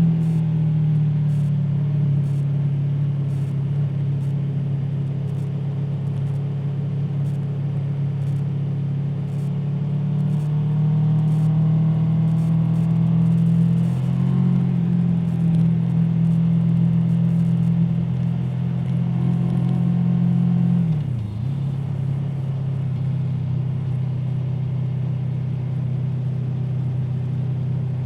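Aprilia Tuono V4 motorcycle's V4 engine running at fairly steady revs under way, its pitch wavering slightly. About three quarters through the note drops briefly and settles into a steadier, lower tone.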